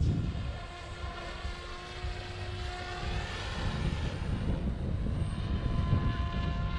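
OMPHOBBY M4 Max electric RC helicopter in flight: a steady whine from its motor and rotors, several tones held together with the pitch shifting slightly, over a low rumbling noise.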